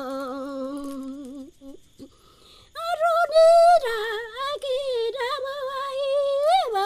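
A Shipibo healer's unaccompanied voice singing an icaro, a healing song, in long held, wavering notes. A low note breaks off about a second and a half in, a short pause follows, then a higher, louder note begins about three seconds in, steps down and rises again near the end.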